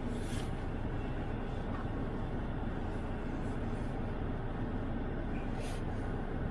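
Car driving on snowy roads: a steady rumble of road and engine noise, with two brief high hisses, one just after the start and one near the end.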